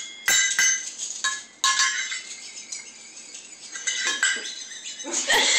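Clinking of small hard objects: four sharp strikes in the first two seconds, then fainter tapping, with a louder clatter near the end.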